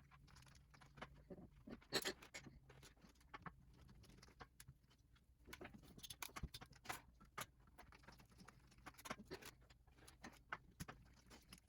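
Faint scraping and light metallic clicks of a screwdriver turning out the small receiver screws of a Henry lever-action .22 rifle, with the screws and lock washers being handled; the sharpest click comes about two seconds in and the clicks bunch together in the second half.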